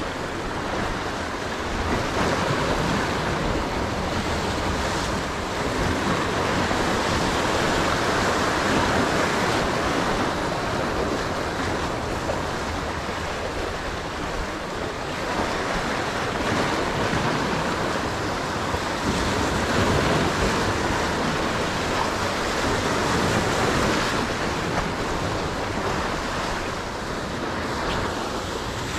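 Small sea waves breaking and washing over the boulders of a rock breakwater: a steady rush of surf that swells and eases, with some wind on the microphone.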